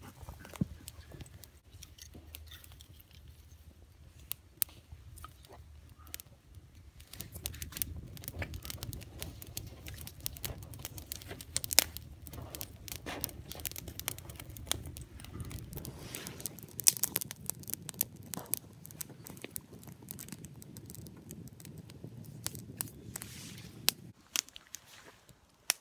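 Campfire of dry spruce twigs and birch bark crackling, with irregular sharp pops over a low rumble that builds about seven seconds in. The sound drops away sharply about two seconds before the end.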